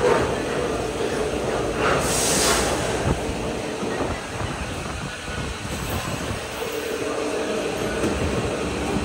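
Gondola lift machinery running: a steady mechanical hum over a rolling rattle, with a short hiss about two seconds in.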